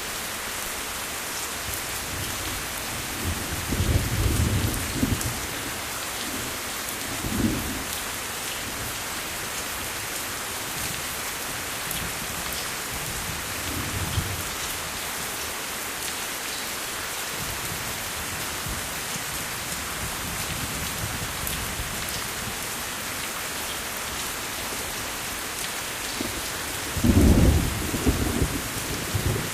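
Steady, even rain, with low rumbles of thunder: one at about four seconds, smaller ones around seven and fourteen seconds, and the loudest near the end.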